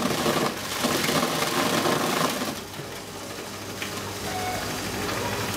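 Takyo TK15 electric forage chopper running with a steady motor hum while its blades chop water hyacinth fed in by hand. The loud crunching and shredding lasts about the first two and a half seconds, then the machine runs on more lightly.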